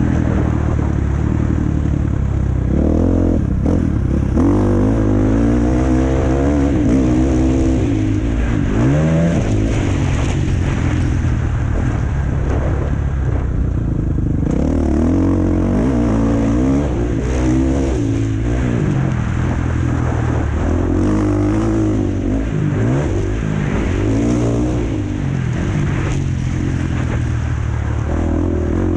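2018 Husqvarna FC450 motocross bike's single-cylinder four-stroke engine running hard under riding load, its pitch climbing and dropping over and over as the throttle is worked and the gears change.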